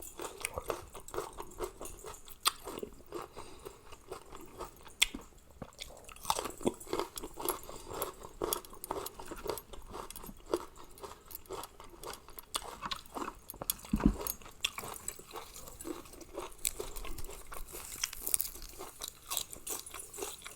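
A person chewing and crunching mouthfuls of seafood papaya salad close to the microphone, with irregular wet crackles and sharp clicks.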